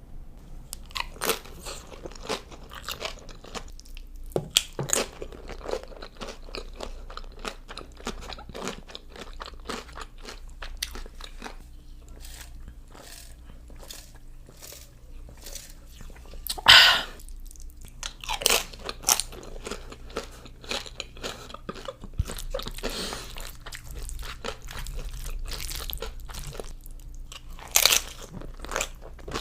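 A person eating Chipotle food up close: biting and chewing, with many short crisp clicks throughout and a louder burst about halfway through and again near the end.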